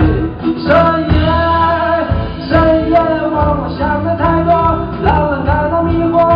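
Mandarin pop song performed live: a male singer sings over guitar-led band accompaniment.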